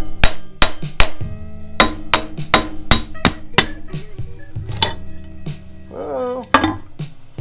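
Repeated sharp knocks of a tool striking the stuck valve cover of a Kohler Command Pro engine to break it loose. There are about a dozen knocks, roughly three a second, with a pause about four seconds in, over background guitar music.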